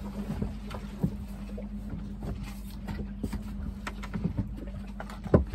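Knocks and thumps of a plastic gas can being handled and set down, with a louder knock near the end, over a steady low hum.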